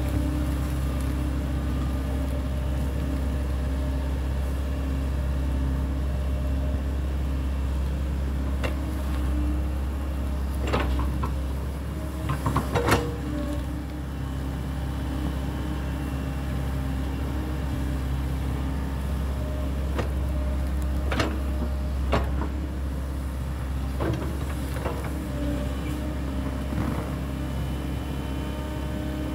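SANY hydraulic excavator's diesel engine running steadily under working load as the machine digs, with a few sharp knocks and cracks from the bucket working in soil and debris, the loudest cluster a little under halfway through.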